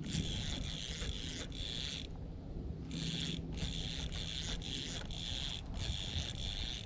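Fishing reel being cranked to retrieve line, a whirring that comes in quick turns of about two a second, with one short pause about two seconds in.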